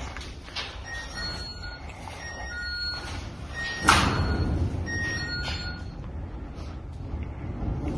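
Short electronic beeps at a few different pitches, sounding in small groups, with a single sharp bang about four seconds in, over a steady low rumble.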